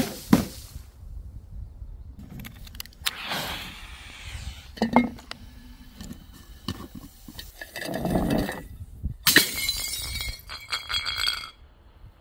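Glass containers smashing on a hard surface: several sharp impacts with shards clinking. The loudest smash comes about nine seconds in and is followed by a couple of seconds of ringing, tinkling glass.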